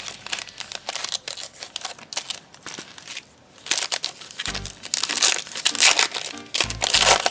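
Foil trading-card pack wrapper crinkling as it is handled, then pulled open along its crimped seam, louder in the second half.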